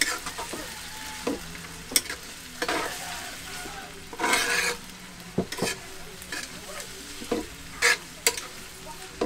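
Chopped meat sizzling in a wok over a wood fire while a utensil stirs it, scraping against the pan in short, irregular strokes, one longer scrape about halfway through.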